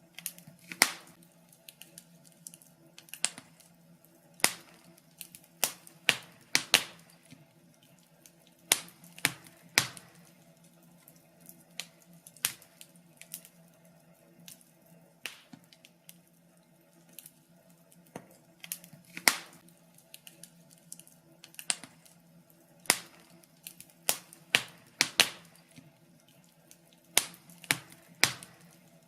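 Wood fire crackling, with irregular sharp pops of varying loudness, several of them loud, over a faint steady low hum.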